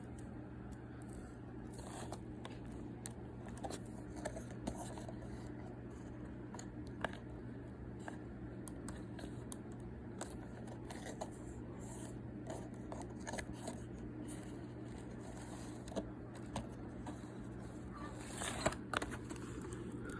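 Faint scattered clicks and scrapes of small objects being handled, over a steady low hum.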